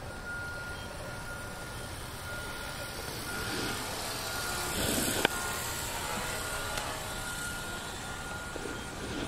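Radio-controlled helicopter in flight, its rotor noise swelling and fading, with a high, steady-pitched beep repeating in short pulses throughout.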